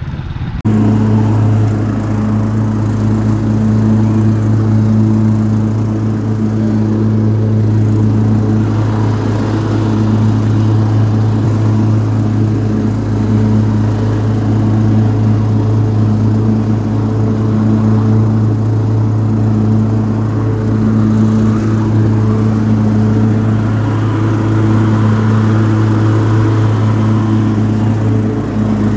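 Cub Cadet XT1 riding lawn mower engine running steadily at constant speed, a deep even hum with a few overtones that swell and fade gently. It cuts in suddenly just after the start.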